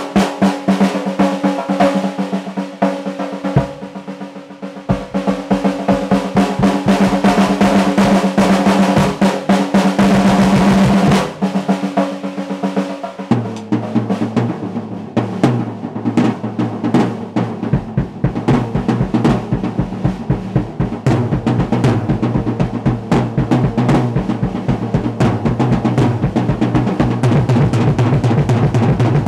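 Acoustic drum kit played solo: fast stick strokes and rolls on the snare and toms. Partway through the pattern changes, and in the second half rapid bass drum strokes run under the hands.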